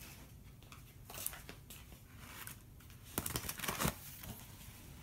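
Light handling clicks, then a short burst of crinkling and crackling about three seconds in.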